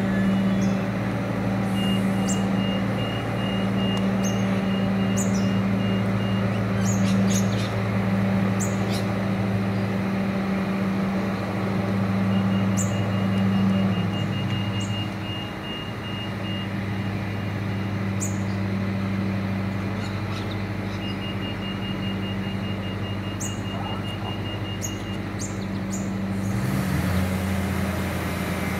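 3000 class diesel railcar's engine idling steadily at a platform, with three spells of rapid high electronic beeping. Near the end the engine note drops and a broad air hiss rises as the railcar starts to pull away.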